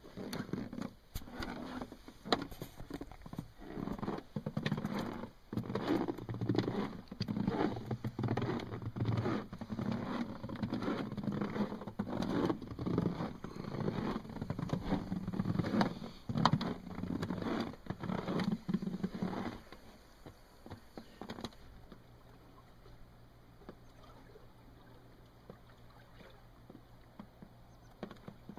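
Footsteps crunching on snow: an irregular run of crunches over a low rumble on the microphone, stopping about twenty seconds in. After that only a faint steady hum remains.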